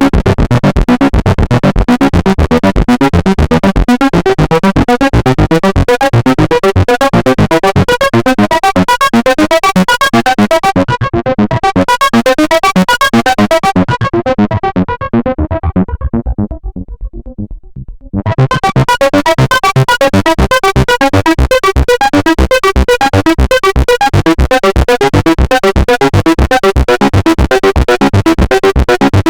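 Behringer Model D analog monosynth playing a fast, evenly repeating sequenced pattern. Past the middle the sound grows duller and quieter as the top end is cut away, then it snaps back bright and full again.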